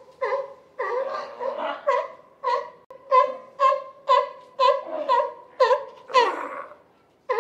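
Harbor seal pup calling: short, laugh-like calls about twice a second, with a longer call near the end.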